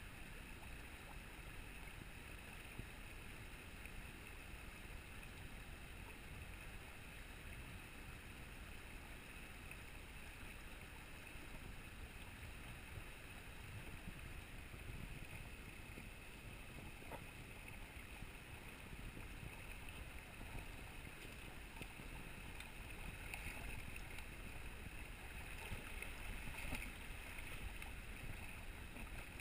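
Steady rush of a shallow river flowing over a rocky bed.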